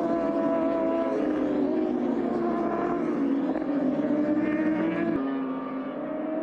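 Racing superbike engines running at high revs as the bikes go through corners, their pitch easing down and climbing again. The sound changes abruptly about five seconds in.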